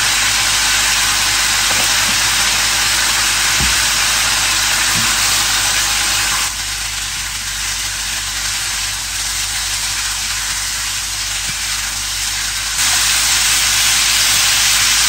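Mutton pieces sizzling in hot oil in a non-stick frying pan: a steady frying hiss over a low hum. The hiss drops in level about six and a half seconds in and comes back up near the end.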